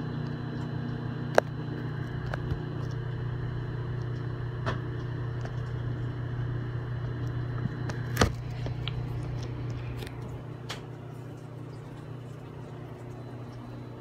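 Samsung microwave oven running with a steady hum, while a handful of popcorn kernels pop one at a time in the bag, the first scattered pops before full popping; the loudest pop comes about eight seconds in. The hum drops a little around ten seconds in.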